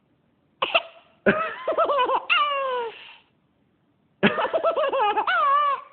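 A young child hiccuping, with three sharp hiccups: one just under a second in, one at about a second and a half, and one past four seconds. The last two each run into about two seconds of high-pitched laughing.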